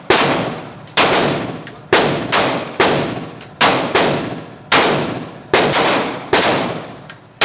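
Gunshots: about a dozen single shots fired at an uneven pace of one to two a second, one pair nearly back to back, each shot followed by a long echoing tail.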